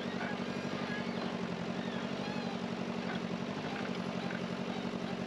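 Excavator's diesel engine running steadily, a low even engine note with a fast regular pulse.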